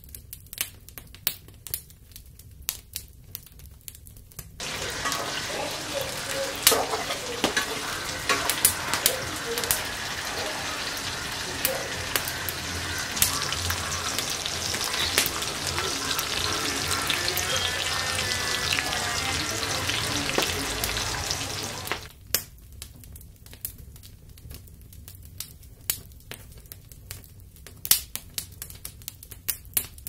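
Cut drumstick (moringa) pods sizzling and bubbling in a pan with onion and spices, with many sharp pops. The loud sizzle starts suddenly about four seconds in and stops suddenly about eight seconds before the end; around it are only quieter scattered clicks and crackles.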